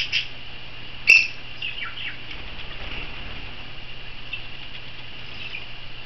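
Pet budgerigars chirping: a couple of sharp chirps at the start, a loud one about a second in, then a few short falling calls and a faint chirp or two near the end.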